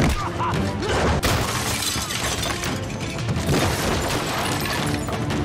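Dramatic background music under crashing, shattering impact sound effects, with two sharp crashes in the first second or so.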